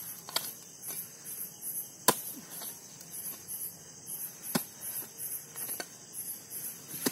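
A few sharp knocks and scrapes, about five, as a spade is driven into earth digging a small hole; the loudest comes about two seconds in. Behind them, crickets chirp steadily in pulses two or three times a second.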